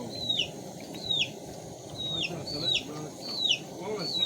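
Chickens clucking, with a high, falling peep repeated about every two-thirds of a second.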